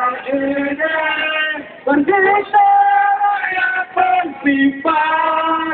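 Voices singing a slow, melodic chant in phrases of long held notes, with short breaks between phrases.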